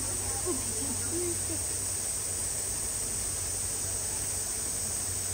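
Steady high-pitched drone of summer cicadas, with a few faint voices of onlookers about a second in.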